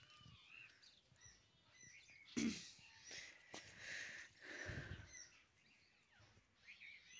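Faint birds chirping in the background of a quiet rural setting, with a brief thump about two and a half seconds in and a soft rustling hiss around four to five seconds.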